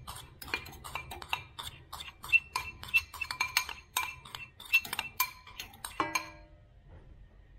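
Metal spoon clinking and scraping against a ceramic bowl, a quick irregular run of sharp clinks with a short ring, as powder is knocked out of it into a steel mixing bowl. The clinks stop about six seconds in.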